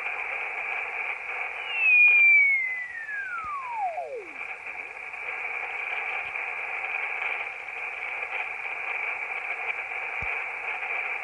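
Alinco DX-SR8T HF transceiver's speaker giving the steady hiss of the 40-meter band in lower sideband as the dial is tuned down. About two seconds in, a loud whistle slides down in pitch and fades out as the tuning passes a carrier.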